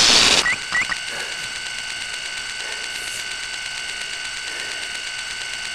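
A loud burst of video-static noise at the start, as the picture breaks up, with two short rising electronic chirps just after. Then a steady electronic buzz of several high tones held together.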